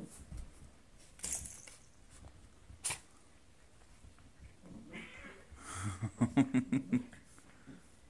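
A cat and a puppy play-fighting: scattered scuffling noises and a sharp click. About six seconds in, the loudest part comes: a quick run of short, low pet vocalisations.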